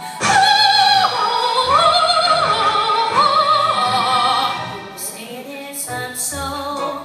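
A teenage girl singing an operatic soprano passage into a microphone: high held and gliding notes with wide vibrato. The music turns quieter about four and a half seconds in.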